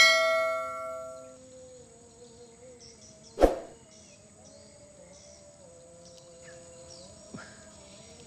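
A bell-like chime rings and fades over about a second and a half: the notification-bell sound effect of a subscribe-button animation. About three and a half seconds in comes a single dull knock, and after it only faint sustained tones.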